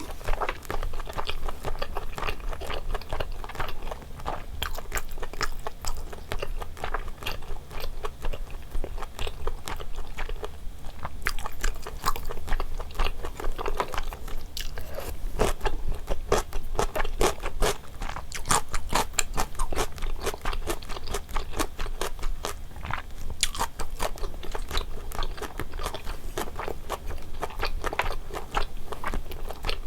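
Close-miked eating sounds: chewing and biting on rose-sauce braised chicken and thick glass noodles, with sticky, clicky mouth noises coming thick and irregular throughout.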